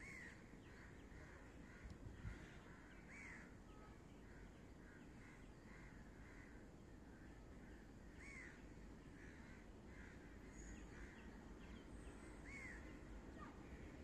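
Faint crows cawing: four arching caws a few seconds apart, with softer short calls between them, over a quiet low rumble.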